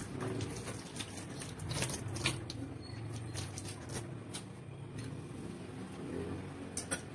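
Scattered small clicks and taps of people eating seafood and rice at a table, over a low steady hum.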